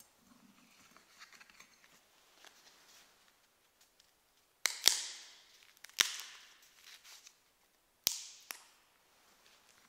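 Sharp clinks of metal communion vessels handled on the altar, in three groups (two close together, then one, then two), each ringing briefly in the chapel's echo, after a few seconds of soft handling rustle.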